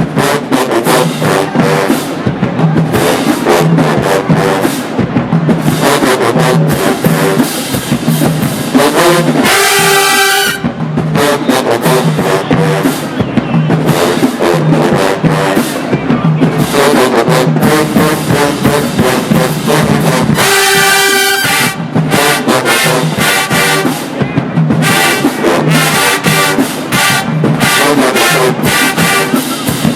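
A college marching band playing: a full brass section of trombones and trumpets over a drumline, with a steady low drum beat and loud sustained brass chords about a third and two thirds of the way in.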